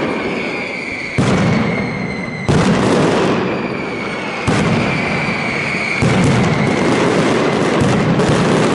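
Mascletà firecrackers going off in heavy daytime blasts, a new one every second or two, each with a long echoing tail, and a quicker cluster of bangs near the end. A steady high whistle runs underneath.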